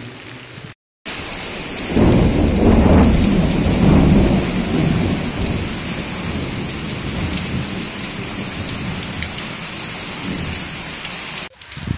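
Heavy rain pouring onto a tiled roof and running off the eaves. About two seconds in, a loud roll of thunder rumbles for a few seconds and fades back under the steady rain.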